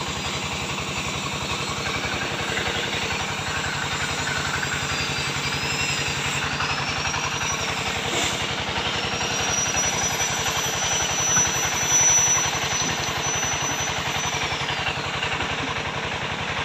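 A small engine running steadily, with a thin high whine that rises, holds and falls away a few times.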